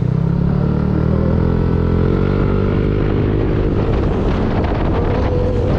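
Yamaha motor scooter engine revving up as the scooter accelerates, its pitch rising steadily over the first three seconds. From about four seconds in, wind buffeting on the microphone grows over the engine as speed builds.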